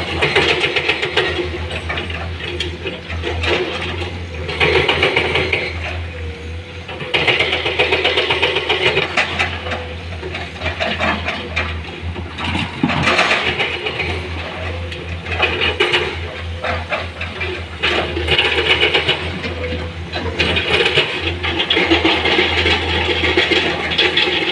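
Excavator's diesel engine running steadily, with repeated louder surges every few seconds as the machine works while loading stone.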